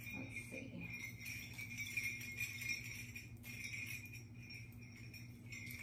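Background music with steady, continuous sleigh-bell jingling.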